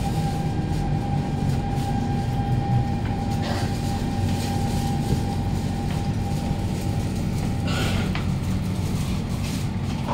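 Siemens C651 metro train heard from inside a carriage as it slows to a stop along a station platform. A low running rumble carries throughout, with a steady whine that fades out about halfway, and two short hisses, about 3.5 and 8 seconds in.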